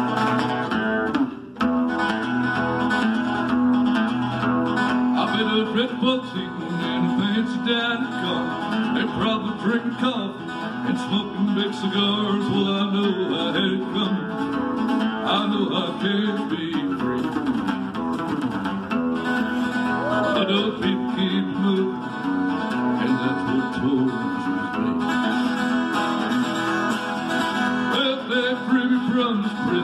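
Acoustic guitar strummed in a country style, with a man singing along.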